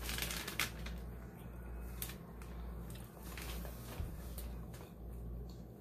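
Small eating and food-handling sounds from shrimp and crab legs, chewing and fingers on shells: a handful of short clicks and crackles over a steady low hum.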